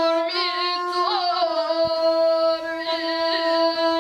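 A gusle, the one-string bowed folk fiddle of the Dinaric mountains, being played, with a voice singing long held notes along with it.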